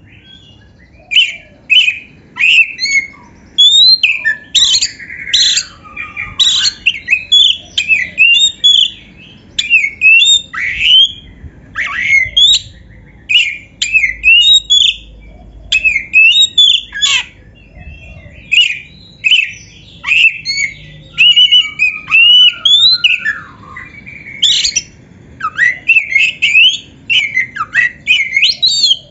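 Oriental magpie-robin (kacer) singing loud, rapid phrases of varied whistles, sliding up and down in pitch, broken by short pauses.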